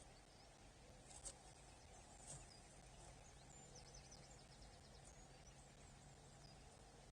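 Faint nest-camera ambience: a steady low hum, two sharp taps in the first few seconds, and brief high bird chirps and a quick run of ticks around the middle.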